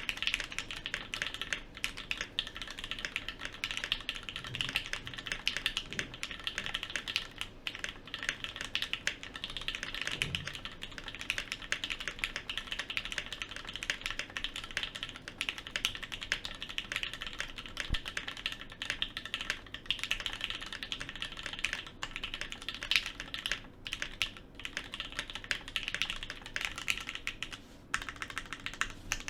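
Continuous fast typing on a Bachoo Nemui mechanical keyboard fitted with Gateron KS-3 Yellow linear switches: a dense stream of key clacks, with a couple of brief pauses near the end.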